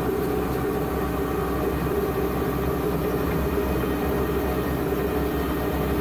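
Criap Midi-Baler 85 running through a windrow of dried grass, its pickup and rotor driven off a Fendt 309 tractor's PTO: a steady mechanical hum with a constant whining tone over a low rumble.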